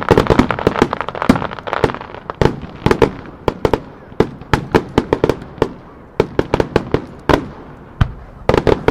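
A fireworks salvo: many sharp bangs in quick succession over a steady noise, densest in the first two seconds, spacing out through the middle, then a tight cluster of bangs near the end.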